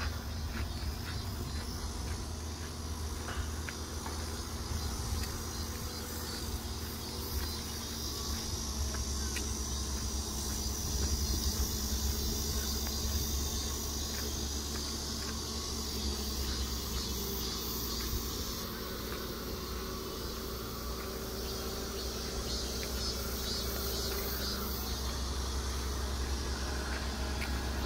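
Insects singing in the bushes: a steady high, shrill hiss that grows louder about eight seconds in and takes on a fast pulsing about two-thirds of the way through, over a steady low rumble.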